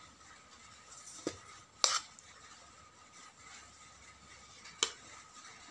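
Metal spoon clinking against a stainless steel plate while food is served: three short sharp clinks, the loudest about two seconds in and the last near the end.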